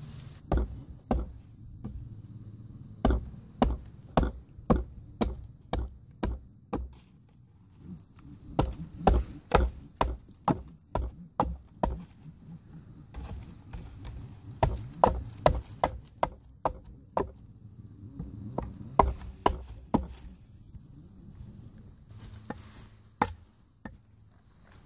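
A hatchet striking wood in repeated sharp blows, in runs of about two a second with short pauses: chopping and splitting wood and driving a wooden stake into the ground.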